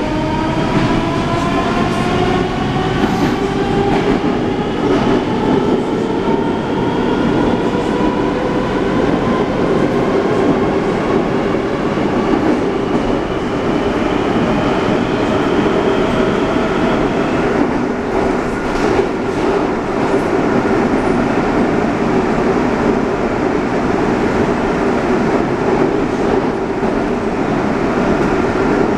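Rusich 81-740/741 metro train heard from inside the car as it accelerates. The traction-drive whine, several tones together, rises steadily in pitch for about the first seventeen seconds and then levels off, over the constant rumble of wheels on rail, with a few clicks of rail joints.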